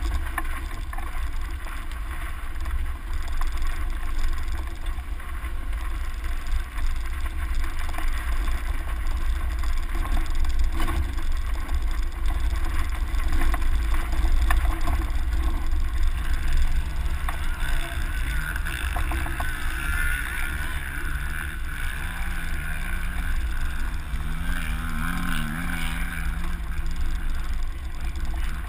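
Off-road vehicle driving along a dirt trail, heard from a camera mounted outside on its door: a steady low rumble of wind on the microphone with engine and tyre noise. About halfway through, a low engine hum comes in, wavering up and down in pitch.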